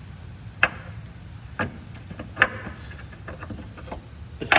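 A few sharp clicks and light knocks, roughly a second apart, from hands working on transmission wiring connectors and clips under a car.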